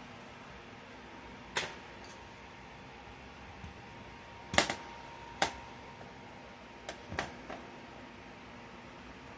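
Squash being cut up on a metal baking sheet, the knife and squash pieces knocking against the pan. There are about six sharp clicks and knocks, the loudest a double knock about four and a half seconds in, followed by a brief metallic ring from the pan.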